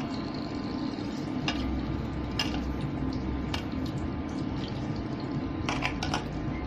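Hands mixing floured ivy gourd strips in a steel bowl: a steady soft rustling and squishing, with a few sharp clicks where fingers and pieces knock the bowl, over a low hum.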